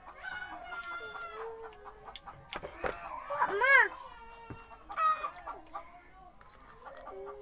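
Birds calling: a run of short pitched calls, with one loud call about three and a half seconds in that rises and then falls in pitch.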